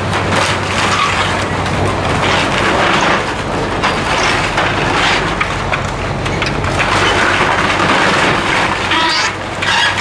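Heavy demolition machinery running with a steady low engine hum while the timbers of an old wooden mill building crack and splinter as it is torn down, with many short snaps throughout.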